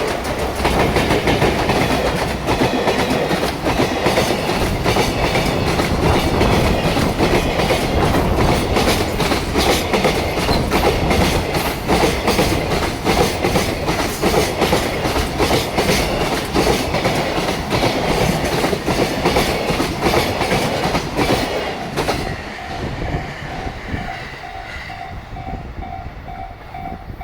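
A long freight train of Koki container wagons rolling past, its wheels hammering over the rail joints in loud, rapid clickety-clack. The end of the train passes about 22 seconds in, and the clatter fades under a level crossing bell ringing in a steady pulse.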